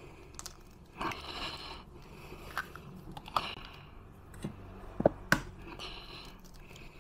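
Eggs being cracked on the rim of a stainless steel mixing bowl: sharp taps of shell against metal and the crackle of shells being pulled apart, with two hard knocks about five seconds in as the next egg is struck.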